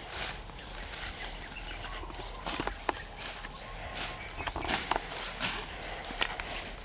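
Footsteps through grass and brush, crunching irregularly every half second or so. Over them, a short high chirp repeats about once a second and a thin steady high tone runs throughout.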